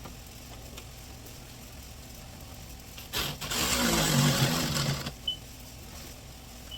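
A small power-tool motor whirring for about a second and a half, preceded by a click, then stopping abruptly.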